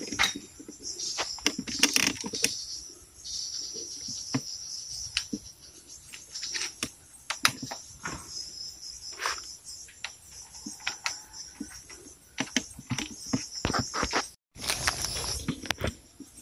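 Irregular clicks and knocks of an aluminium telescopic pole cutter being handled and fitted together, over a steady high buzz of insects. There is a brief dropout a little before the end, then plastic crinkling.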